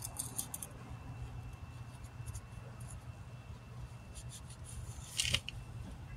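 A hand tool scraping and scoring into fresh mortar in short, irregular strokes, with the loudest scrape about five seconds in.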